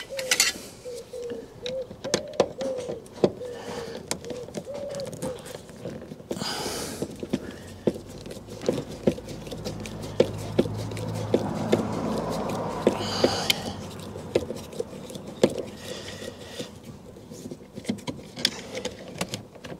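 Small plastic clicks and scrapes as a car's plastic door-trim cover plate is pried off and a screwdriver works at the trim screws behind it. A faint wavering tone sounds in the first few seconds, and a low rumble swells and fades in the middle.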